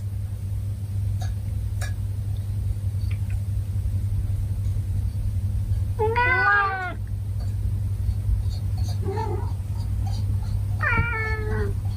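Domestic cats meowing while waiting to be fed: one long meow about halfway through, a faint short one, and another meow near the end, over a steady low hum.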